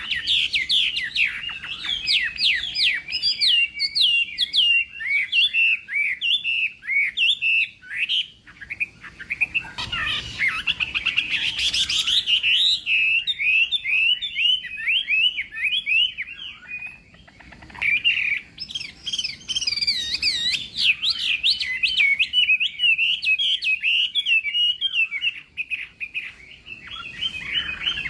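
Chinese hwamei singing a long, rapid, varied song of whistled phrases and quick repeated notes, with short breaks about a third of the way in and again past halfway.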